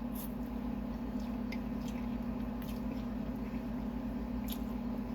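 A person chewing a mouthful of takeout noodles, with a few scattered wet mouth clicks, over a steady low hum.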